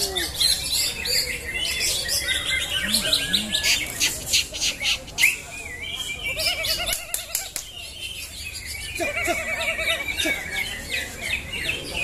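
Several green leafbirds (cucak hijau) singing at once: a dense tangle of loud chirps, whistles and rapid trills.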